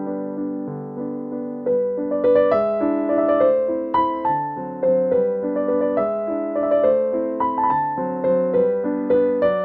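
Background piano music: a gentle, steady run of struck notes and chords.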